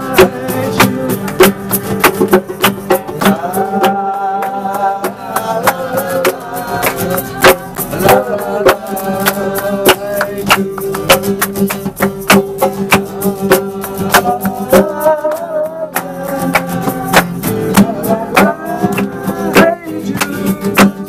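A group of people singing together to a strummed acoustic guitar, with rhythmic hand clapping and a hand drum keeping the beat. The sound is a singalong in a train carriage, with long held sung notes.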